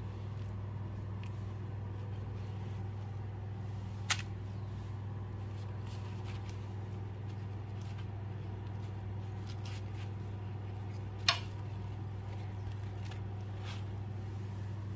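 A steady low electrical hum, with two sharp clicks: one about four seconds in, one about eleven seconds in.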